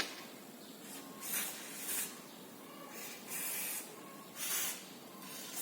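Aerosol can of penetrating oil spraying in four short hissing bursts onto a seized suspension ball joint, the third burst the longest.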